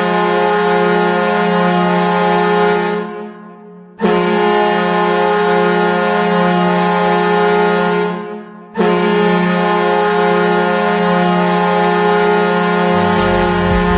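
Detroit Red Wings hockey goal horn sounding three long, loud blasts. Each blast is a rich, steady chord-like tone that fades out before the next one starts.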